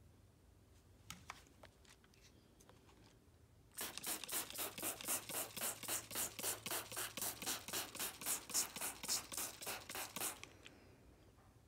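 Hand trigger spray bottle pumped rapidly, squirting cleaner in a quick even run of hissing sprays, about four or five a second, for some six seconds starting a few seconds in. A few faint clicks come before it.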